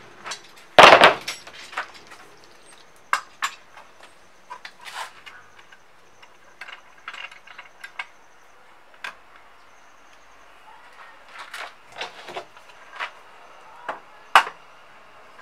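Irregular knocks and clinks of tools and wood being handled on a workbench, with one loud bang about a second in and another sharp knock near the end.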